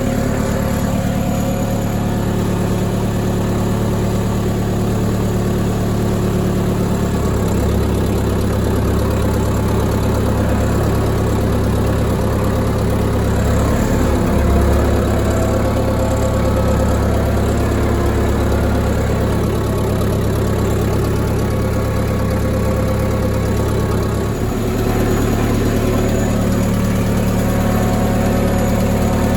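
Case backhoe's diesel engine running steadily under load while towing a heavy, dragging load; it gets a little louder for a stretch in the middle and dips briefly near the end.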